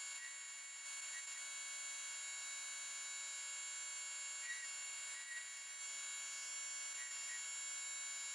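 Metal lathe running with a steady high whine made of several even tones, while the tool cuts grip grooves into the spinning metal part, giving a few faint short chirps.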